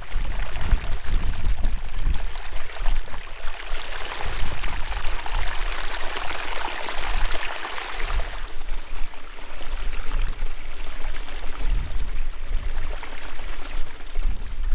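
Strong wind buffeting the microphone with a gusty low rumble, over a steady rushing hiss that swells about three seconds in and eases after about eight seconds.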